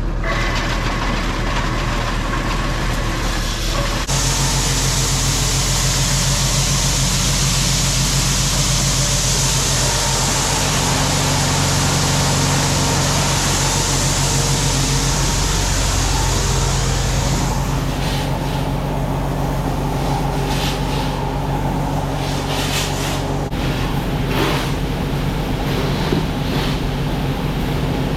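Engine-driven machinery running steadily with a constant low hum. The sound changes abruptly about four seconds in, and a scraping rustle joins it in the last third.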